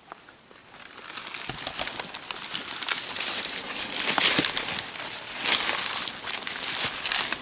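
Close, dense rustling and crackling that builds up over about the first second and then keeps going.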